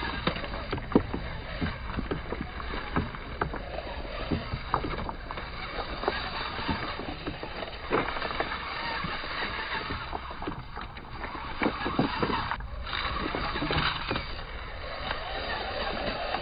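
River stones clacking and crunching in many irregular knocks over a steady rushing hiss.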